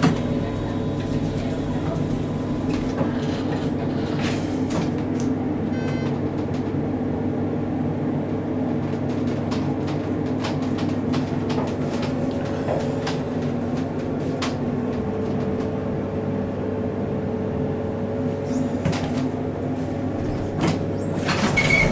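Otis hydraulic elevator, modernized by Schindler, running with a steady hum throughout, with scattered light clicks and a louder clatter near the end.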